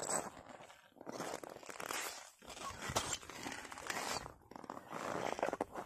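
Hard, frozen snow crunching underfoot in uneven bursts of about a second each.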